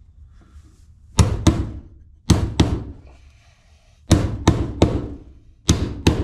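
A claw hammer drives a steel stud protector plate onto a wooden wall stud. There are about ten sharp blows in groups of two or three, with short pauses between the groups.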